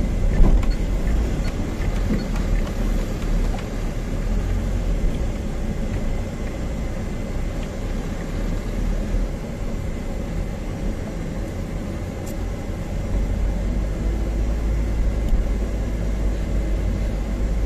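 Loaded Tata 1512 truck running along a narrow road, a steady low engine and road rumble heard from inside the cab that grows slightly louder near the end.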